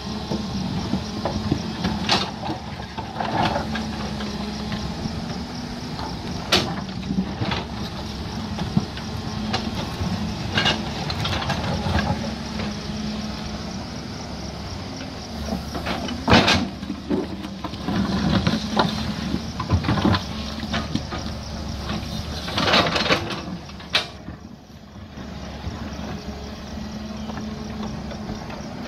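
JCB crawler excavator's diesel engine running steadily under load while the bucket digs into a hillside, with repeated knocks and clanks of rock and soil striking the bucket and tumbling down. The engine eases off briefly about twenty-four seconds in, then picks up again.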